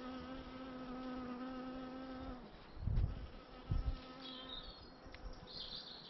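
A bee buzzing at one steady pitch. The buzz stops about two and a half seconds in and comes back faintly a second later. Two dull low thumps, the loudest sounds, fall about three and three and a half seconds in.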